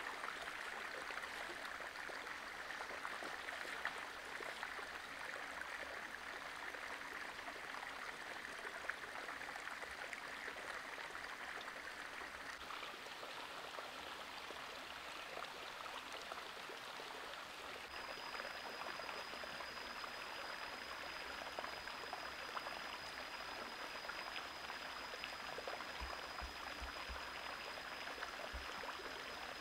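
Shallow stream water running steadily over rocks. About halfway through, a thin, steady high-pitched tone joins and holds to the end.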